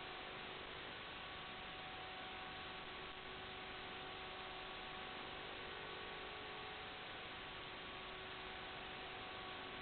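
Steady static hiss with a few faint, unchanging hum tones underneath and no other events.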